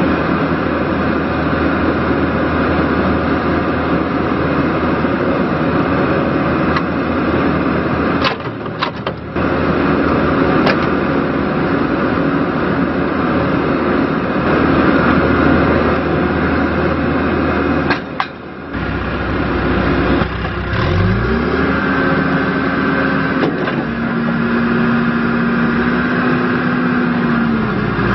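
2006 John Deere 410G backhoe loader's diesel engine running steadily, with two brief dips at about 8 and 18 seconds in. About 20 seconds in, a tone rises steeply, then holds steady at a higher pitch and drops away near the end.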